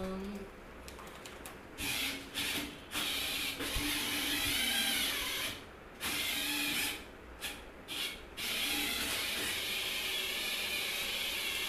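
Combat robot's geared drive motors whirring as it is driven around by remote control with a heavy bag loaded on top. The whirring comes in several short spurts that start and stop, then runs on steadily near the end.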